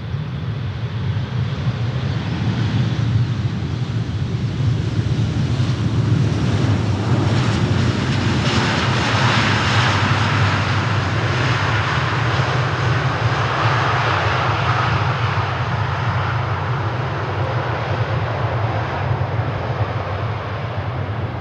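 Jet airliner's engines passing by: a steady low rumble with a rushing noise that swells to its loudest about halfway through, then slowly eases off.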